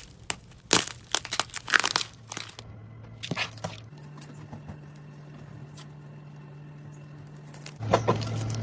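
Slime being squeezed and pressed by hand, crackling and popping in quick sharp clicks. It falls quiet about halfway through, leaving only a faint steady hum, and the squishing picks up again near the end.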